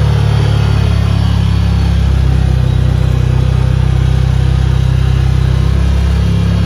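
Side-by-side UTV engine running steadily under way, a loud, even low rumble heard from inside the open cab.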